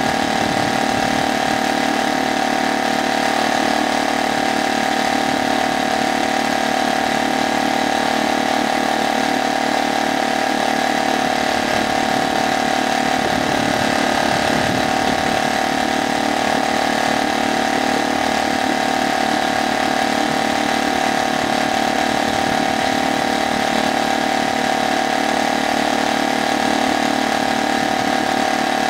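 Brand-new HDX F 2.6 BMS four-stroke outboard motor running steadily with its propeller in a test barrel of water.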